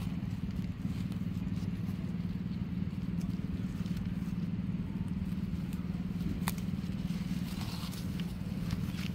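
A steady low motor hum, with a few faint clicks and one sharper tick about six and a half seconds in.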